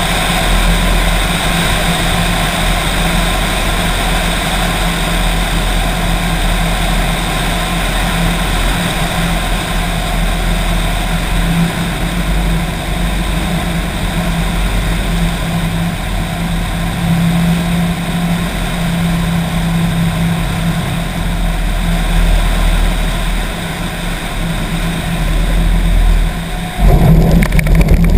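Cessna L-19/O-1 Bird Dog's six-cylinder engine and propeller running steadily, throttled back for landing, with rushing wind on a wing-mounted camera. Near the end the sound turns suddenly louder and rougher as the wheels touch down and roll on grass.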